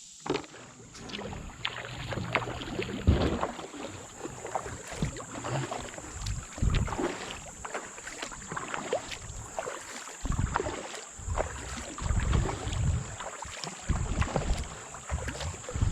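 A kayak moving on a creek: water splashing and sloshing, with irregular knocks and low thumps against the hull.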